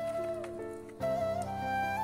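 Background music: a slow melody of long held notes that slide between pitches, over a steady low drone, with a new phrase starting about a second in.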